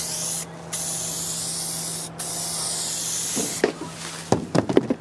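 Aerosol spray can spraying paint onto a plastic fender scoop in three hissing bursts with short breaks between them. In the last second or so, a run of sharp clicks and knocks.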